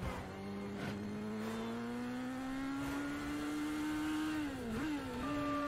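Motorcycle engine accelerating in a film soundtrack, its pitch rising steadily for about four seconds, then dipping briefly and recovering before running on steadily.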